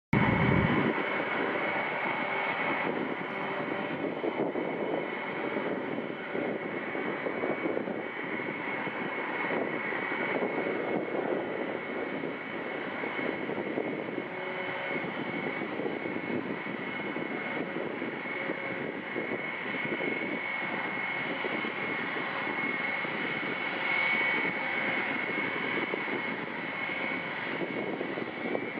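Boeing E-3A AWACS's four TF33 turbofan jet engines running at taxi power, heard from across the airfield: a steady whine with a high tone over a continuous rushing hiss.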